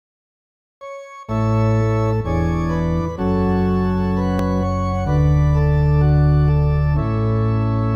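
Organ playing the introduction of a responsorial psalm accompaniment: a single soft note about a second in, then full sustained chords with a strong bass, changing every one to two seconds.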